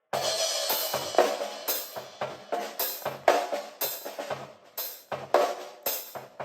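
Acoustic drum kit played in a steady groove, bass drum and snare under cymbals, starting abruptly right at the start, with strong accented hits about twice a second.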